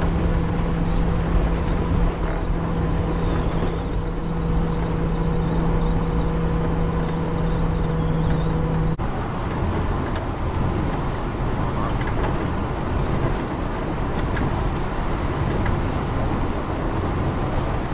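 Car engine and tyre noise from inside the cabin while driving at speed, a steady drone. About halfway through, a steady hum in it stops abruptly and the rest carries on.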